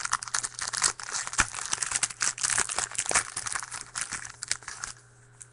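Crinkling and tearing of a trading-card pack wrapper as it is opened and crumpled by hand. The dense crackle stops about five seconds in.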